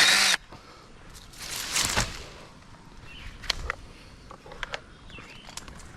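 Handling noise: a loud brushing scrape at the start, a softer rustling swell about a second and a half in, and scattered clicks and knocks. This fits pulling something free from branches. The electric pruning saw's motor is not running.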